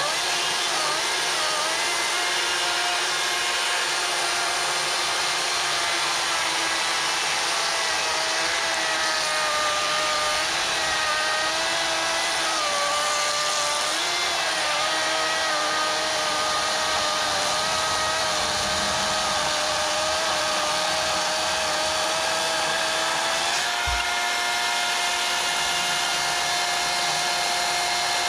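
Craftsman V60 brushless cordless chainsaw cutting through a pine log, its electric motor whining steadily under load with the pitch sagging and wavering as the chain bites. About 24 seconds in there is a thump, and the whine steps up higher and holds even as the chain breaks through and runs free.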